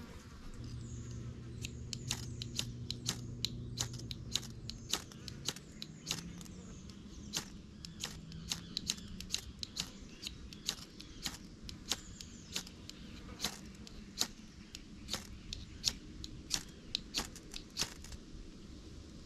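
Campfire of slightly damp kindling crackling, with sharp irregular pops about one to three times a second.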